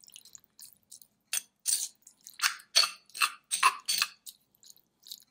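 Metal spoon stirring raw shrimp in lime juice in a stone molcajete: a string of irregular wet squelches and scrapes, thickest between about one and four seconds in.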